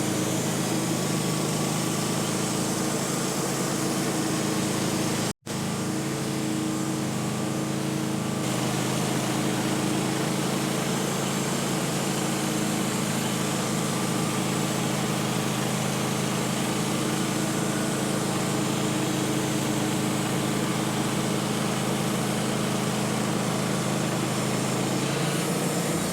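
Gasoline engine of a portable bandsaw mill running steadily while its resharpened band blade saws a board from a pine log. The sound drops out for a split second about five seconds in.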